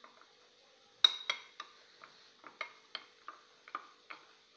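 Metal spoon stirring a thick cornflour-and-water slurry in a small glass bowl, clinking against the glass about two or three times a second from about a second in.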